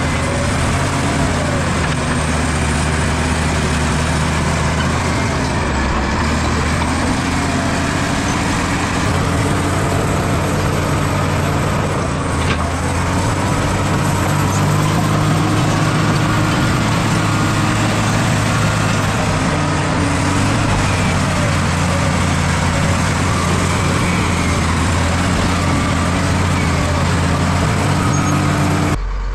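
Bulldozer's diesel engine running steadily and loudly under load. The sound changes abruptly just before the end.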